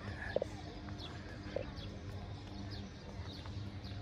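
Small birds chirping again and again in short falling notes, with two louder brief notes about a second apart, over a steady low hum.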